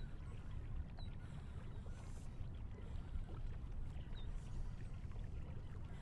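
Wind rumbling steadily on the microphone, with three faint, short high chirps over it.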